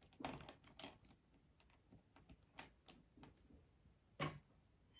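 Faint, irregular clicks and taps of plastic 4x4 Rubik's Cube pieces being handled and fitted into place, the sharpest about a quarter second in, near one second and just after four seconds.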